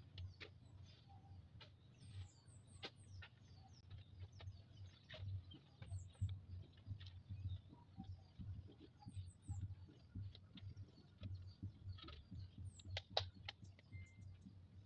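Faint yard ambience: a small bird chirping in short groups of quick high notes every few seconds, with scattered light clicks and knocks and a low steady hum underneath.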